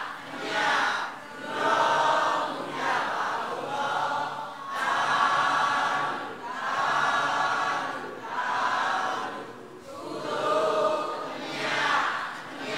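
A group of voices chanting together in unison: Buddhist devotional chanting in slow, swelling phrases about one to two seconds apart.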